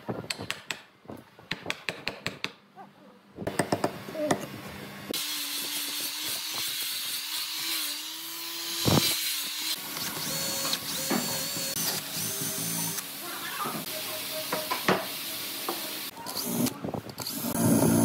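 A wood chisel cutting chips off the edge of a hardwood stump, a run of sharp cracks and knocks. About five seconds in, a cordless drill bores into the stump with a steady motor whine for around ten seconds, followed by more knocks and drilling near the end.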